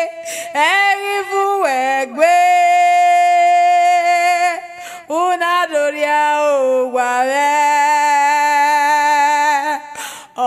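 A woman singing in long held notes that step to a new pitch every few seconds, with short breaks between phrases.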